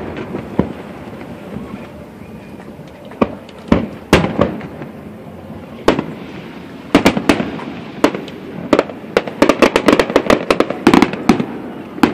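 Aerial fireworks going off: separate sharp bangs every second or so at first, then a rapid string of many bangs and crackles through the second half.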